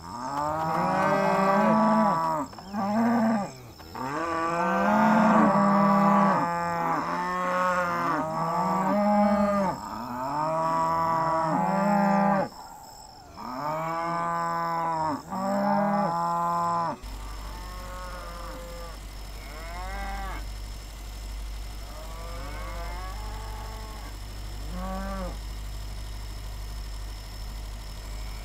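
A herd of black beef cattle mooing, many long calls overlapping for about the first seventeen seconds. Then, abruptly, only fainter, scattered moos are heard over a steady low rumble.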